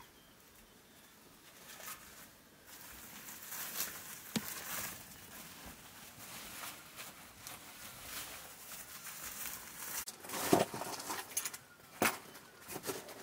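Small wood fire crackling under a metal cooking pot, an uneven hiss scattered with sharp clicks and pops. A few louder knocks come about ten and twelve seconds in.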